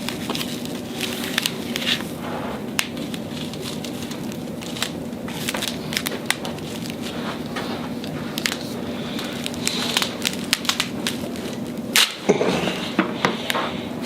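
Y-strap chiropractic adjustment: scattered clicks and rustles of the strap and table being handled, then a sharp crack about twelve seconds in as the traction pull pops the spinal joints.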